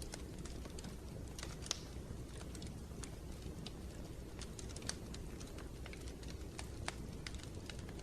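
Wood fire crackling in a fireplace: irregular sharp pops and snaps over a steady low rumble, with a few louder pops spread through.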